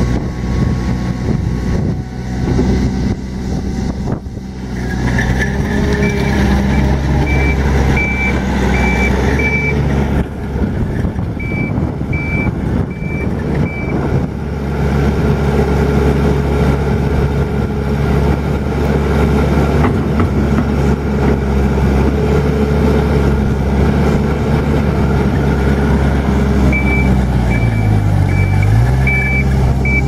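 Takeuchi TL140 tracked skid steer's Isuzu four-cylinder diesel running steadily as the machine drives and works its bucket, its engine note dipping and recovering near the end. A backup alarm beeps in three spells while it reverses.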